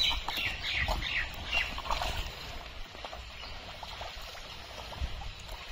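Wet pond mud squelching and sloshing as hands dig through it for fish. A cluster of short, high chirp-like squeaks comes in the first two seconds, then only quieter soft squelches.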